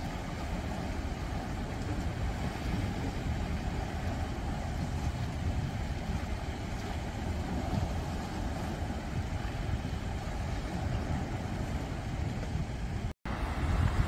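Sea waves washing against breakwater rocks: a steady rushing surf with a deep rumble. The sound cuts out for an instant near the end.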